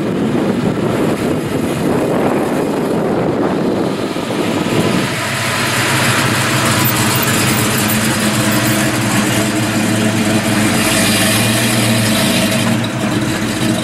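A 1957 Chevrolet Bel Air's engine running as the car rolls slowly past at low speed. About five seconds in, a steady, even engine tone comes through clearly.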